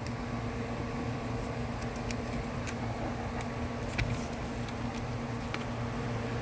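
Steady low mechanical hum of the SUV running, heard inside the cabin, with a few light clicks and taps of plastic and paper being handled at the open glove box.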